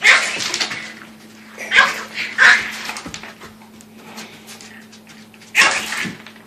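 A dog barking in short, sharp barks, four of them: one at the start, two close together about two seconds in, and one near the end.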